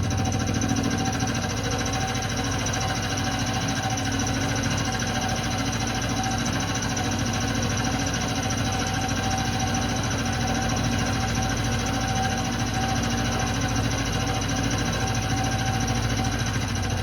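Milling machine running steadily while it machines one face of a metal tool-holder blank, with a constant low hum and a steady high whine.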